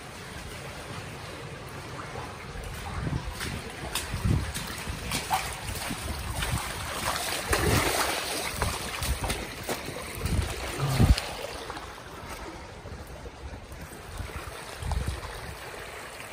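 Swollen, fast-flowing floodwater rushing in a small river, loudest about halfway through, with a few low thumps on the microphone.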